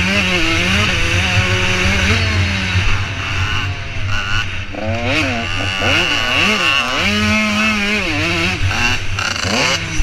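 85cc motocross bike's engine running hard, its pitch climbing and dropping again and again with throttle and gear changes, quickest about halfway through. Heard from a camera on the rider's helmet.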